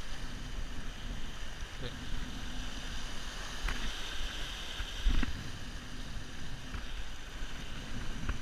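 Ocean waves surging and washing over rocks, with wind rumbling on the microphone. Two short knocks come near the middle, the second, about five seconds in, the louder.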